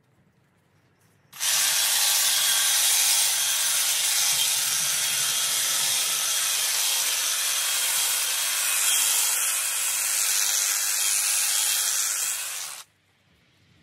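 Honda HHH 36 AXB cordless battery hedge trimmer running and cutting through hedge foliage, a loud steady buzz that starts sharply about a second in and stops abruptly near the end.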